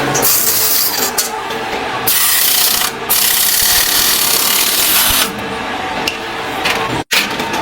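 Tool work on a motorcycle engine's side cover: stretches of scraping and rubbing a second or two long that start and stop abruptly, with two sudden breaks near the end.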